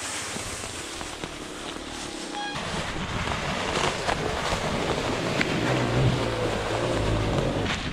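Enduro dirt bike running at low revs under heavy wind noise on the rider-mounted microphone. The engine grows louder about a third of the way in.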